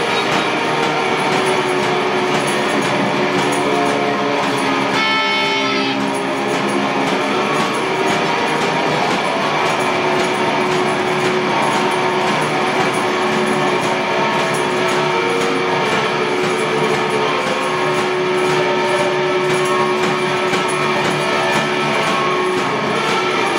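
Live one-man-band music led by an amplified electric guitar, played in sustained, droning tones at a steady loud level.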